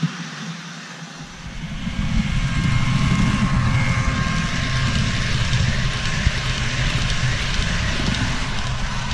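Model TGV PSE train running past close by, a steady rumble with a faint high whine, swelling about a second and a half in as it arrives.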